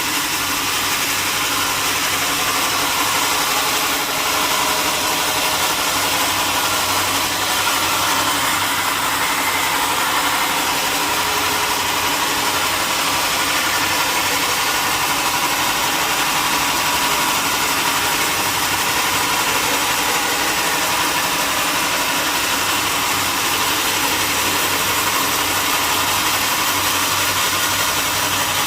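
Sawmill machinery running steadily: a loud, constant mechanical noise with no breaks or changes.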